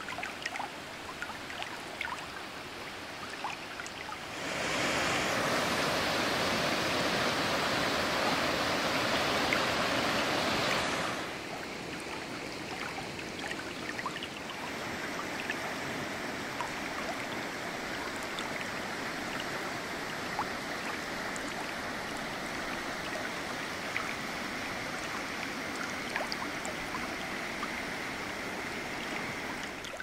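Steady rush of water from a waterfall and its stream. It grows louder and fuller from about four seconds in, then drops back to a steadier, softer rush at about eleven seconds.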